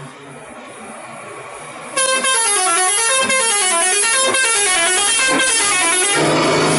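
A bus's 'telolet' multi-tone musical air horn playing a rapid up-and-down tune for about four seconds, starting about two seconds in. Near the end it gives way to a loud broad rushing noise.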